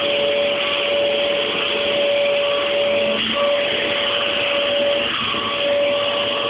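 Vacuum cleaner running steadily: a continuous motor whine at one pitch over a rushing hiss. The whine breaks off briefly about three seconds in and again about five seconds in.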